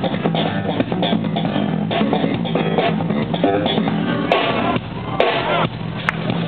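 Live electric bass guitar and drum kit playing together through a stage amp, with a couple of sharp accented hits about four and five seconds in.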